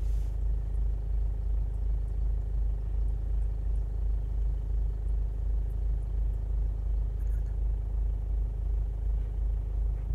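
Low, steady rumble inside the cabin of a 2006 Kia Sportage: the car's engine and running noise, with a slight regular throb in the level.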